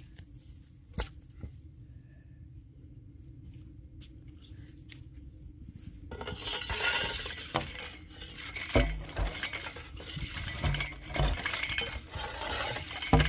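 Clinks and knocks of hand well-boring: a bamboo boring pole worked in a metal casing pipe at the borehole. A few faint clicks at first, then louder, more frequent irregular knocks and thuds from about six seconds in.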